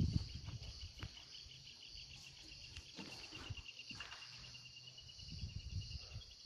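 An insect trills in a fast, even pulse until shortly before the end, over a steady high insect hum. Low rustling is loudest right at the start, and a few sharp clicks fall about one and three seconds in.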